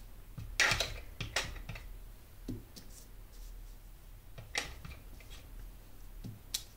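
Wood-mounted rubber stamp tapped several times on an ink pad and pressed onto paper: a quick cluster of soft taps in the first two seconds, then a few single knocks later on.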